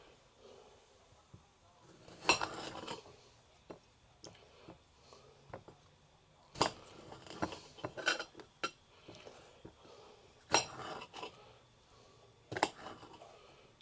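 A kitchen knife slicing a tomato, its blade knocking and clinking against the dish underneath at irregular intervals, with a handful of louder strikes.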